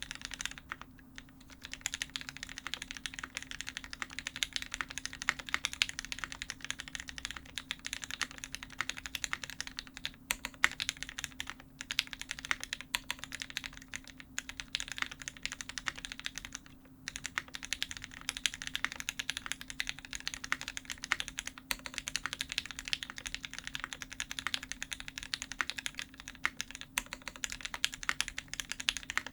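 Typing on an F1-8X custom mechanical keyboard with GMK Honeywell ABS keycaps, over lubed, filmed Gateron Ink Black linear switches in an aluminum plate: a fast, steady run of keystrokes with a few brief pauses.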